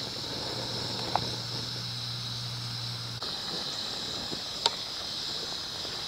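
A steady high buzzing of insects, with a low hum underneath that stops about halfway. Two light clinks of a spoon against a steel cooking pot come as rice is stirred into boiling water.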